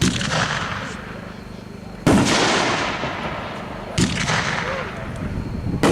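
Consumer fireworks cake (Black Cat Chameleon, 9 shots) firing: four loud shell bursts about two seconds apart, each dying away in an echoing tail.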